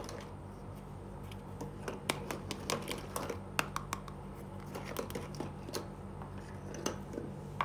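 Small hard-plastic toy cookware being handled: a green toy pot with its lid is picked up, turned over and set down on a cloth, giving light, irregular plastic clicks and taps. A steady low hum runs underneath.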